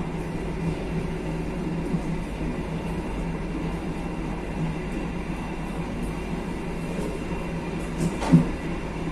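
Passenger train carriage running along the track: a steady rumble of wheels on rail, with one sharp, louder knock near the end.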